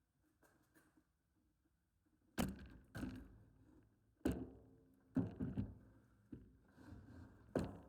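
A series of sharp knocks and clunks, about five, spaced irregularly, with a short ring after each.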